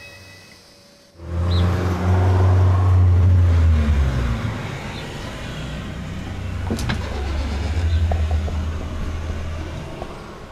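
Loud low droning rumble that starts abruptly about a second in, with a tone sliding downward over the next few seconds, and a single sharp click about seven seconds in.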